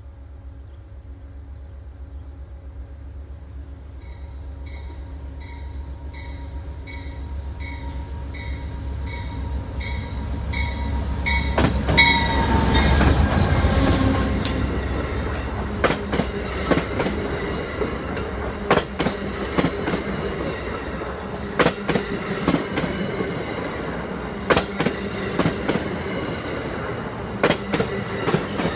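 Amtrak passenger train, a P42DC diesel locomotive with an NPCU cab car, passing a platform. A bell rings in even strokes over a low rumble as it approaches. The rush is loudest as the head end goes by about twelve seconds in. The coaches then roll past with wheels clacking over rail joints in repeated pairs of clicks.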